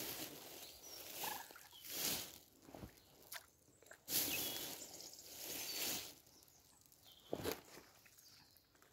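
Mute swans dabbling at the water's surface, their bills slurping and splashing in irregular bursts as they sieve up floating food.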